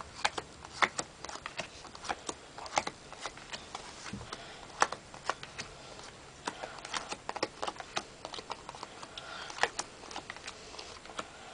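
Playing cards being dealt one at a time from a hand-held deck onto a carpet: a string of light, irregular clicks and snaps, a few a second, as each card is peeled off and laid down.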